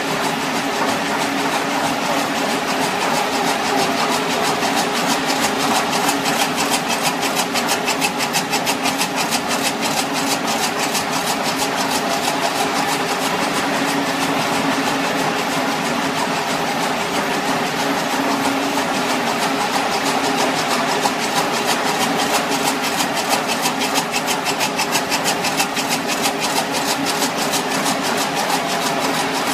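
Helical tomotherapy unit running during a 6 MV photon delivery: a steady machine hum with a fast, fine ticking over it, densest through the middle.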